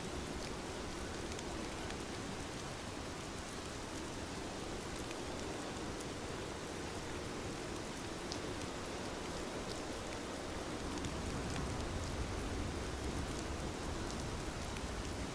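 Steady rain falling, with scattered single drops ticking sharply over the even hiss.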